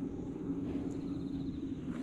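An engine running steadily with a constant low drone.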